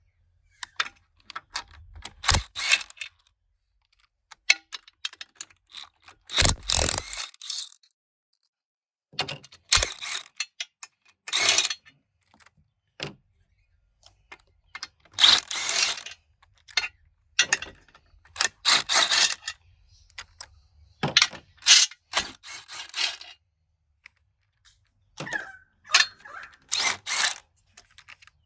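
Hand ratchet wrench clicking in short bursts, with pauses between, as bolts are undone on an automatic transmission.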